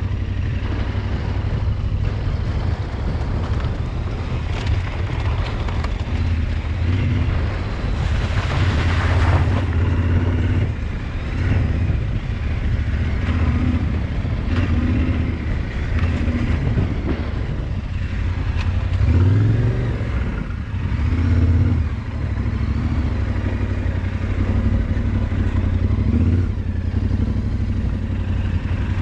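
Off-road vehicle engine running while driving over a muddy track, its pitch rising and falling with the throttle, with a sharp rev-up about two-thirds of the way through. A brief rushing noise rises over it about eight seconds in.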